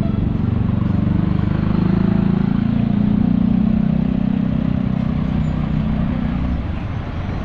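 A large truck's engine running close by amid street traffic. Its low pitched hum swells through the middle and eases off near the end.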